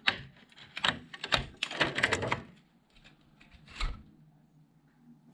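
Clear plastic wrapping on a scooter battery pack being handled, crackling and clicking in a quick flurry for about two and a half seconds, with one more crackle a little later.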